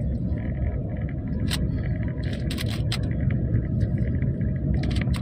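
Plastic Rubik's cube being turned fast during a speed solve: quick, irregular clicks and scrapes of the layers. A steady low rumble runs underneath.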